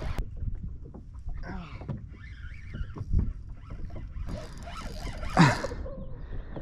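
Low wind and water rumble with scattered small clicks and knocks from rod and reel handling on the boat. A short, sharp falling squeak comes about five seconds in.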